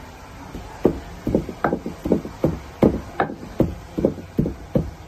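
Wooden pestle pounding dry, crumbly ingredients in a mortar: about eleven dull thuds, two or three a second, starting about a second in.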